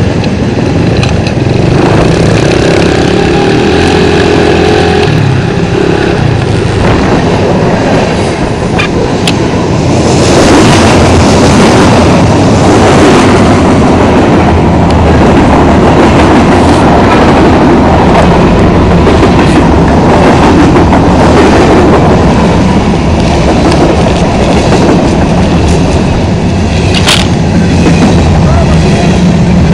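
Kawasaki KLX110 dirt bike's small single-cylinder four-stroke engine running while riding alongside a passing freight train, the train and bike sounds mixed under a loud, dense rushing noise that grows louder about ten seconds in. A brief sharp knock near the end.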